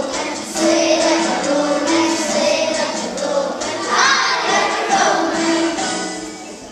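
A class of young children singing a song together in unison, fading away near the end.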